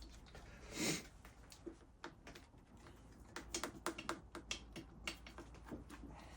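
Light, irregular clicks and taps, bunched between about three and five seconds in, from small parts or a hand tool being handled during workshop work. A short whoosh comes about a second in.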